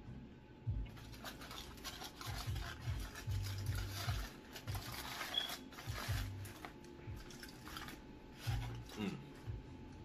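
Aluminium foil crinkling and a plastic fork scraping and clicking in a foil takeout tray, a dense crackle starting about a second in, with background music underneath.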